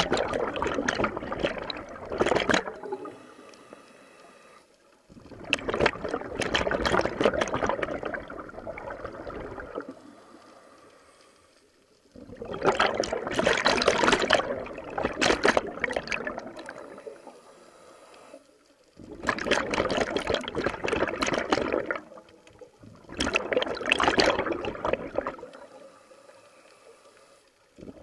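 A scuba diver breathing out through the regulator underwater: rushing, gurgling bursts of exhaled bubbles lasting a few seconds each, six times, with quieter gaps between for the in-breaths.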